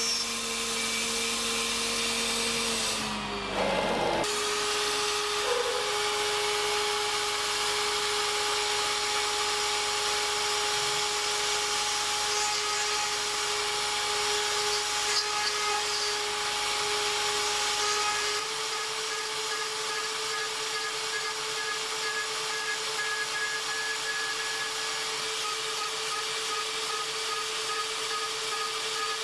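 Mafell FM 1000 router spindle on a DIY CNC mill spinning at high speed while an end mill cuts aluminium plate: a steady high whine over the hiss of cutting. About three seconds in the whine drops in pitch and the sound breaks off briefly, and about two-thirds through it steps a little higher in pitch.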